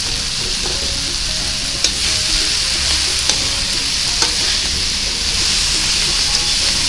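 Chopped kimchi and sliced beef sausage sizzling in oil in a wok, stirred with a slotted metal spatula. There is a steady frying hiss, with a few sharp clicks of the spatula against the pan about two, three and four seconds in.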